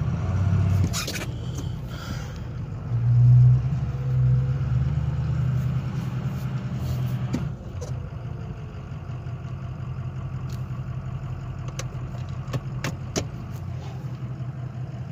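Turbocharged pickup truck engine running under way, heard from inside the cab. It swells briefly about three seconds in, eases off about halfway through, then runs steadily, with a few sharp clicks near the end.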